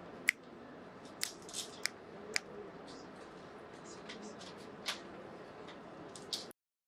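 Wrapping paper crackling and rustling as a book is unwrapped, in scattered sharp crinkles over a low room hum. The sound cuts off abruptly near the end.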